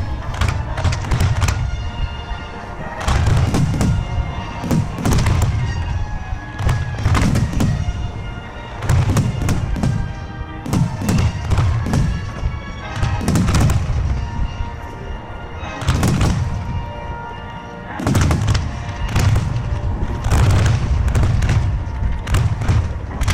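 A fireworks starmine firing in rapid volleys: deep booms and sharp cracks in quick succession, over music playing through loudspeakers.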